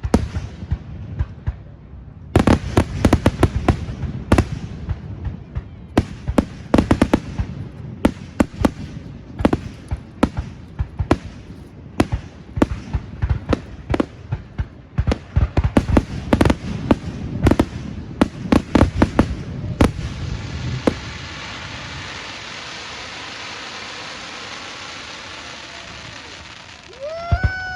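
Fireworks grand finale: a rapid barrage of loud bangs from about two seconds in, shell after shell bursting in quick succession. The bangs stop about twenty seconds in, followed by several seconds of a steady hiss and a brief pitched tone near the end.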